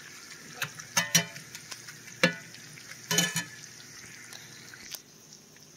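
Dried beef sizzling in melted butter in a cast iron skillet, with a metal spatula stirring and knocking against the pan several times, each knock ringing briefly. The sizzle turns quieter about five seconds in.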